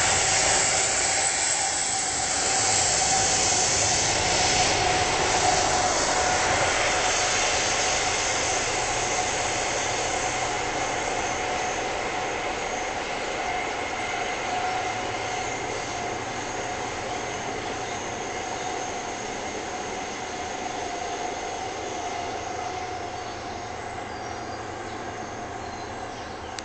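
Freight train of covered wagons rolling past and moving away: a continuous rush of wheels on rail with a steady high tone over it, fading gradually.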